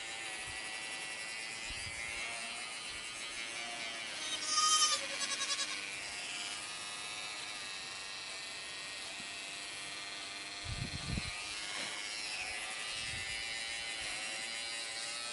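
Wahl Peanut electric hair clippers running steadily, shaving the hair around a baby goat's horn buds. A short louder sound breaks in about five seconds in, and a low thump comes near eleven seconds.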